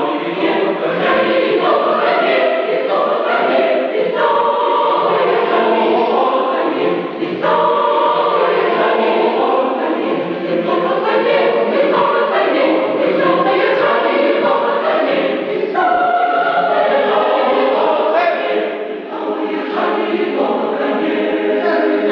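Choir singing unaccompanied in several parts, working through a phrase in rehearsal. Near the end it settles onto a long held chord.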